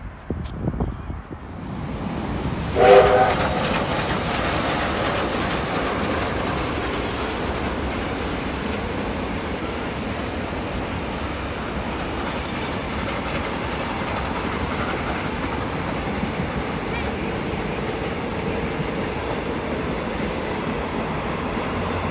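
A train running past: its noise swells about two seconds in, with a short horn blast about a second later, then the steady rumble and clickety-clack of the cars going by.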